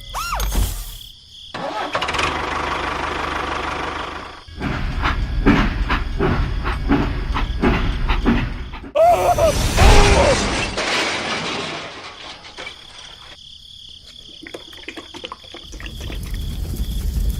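Small motors of miniature DIY construction machines running, in several short segments broken by abrupt cuts.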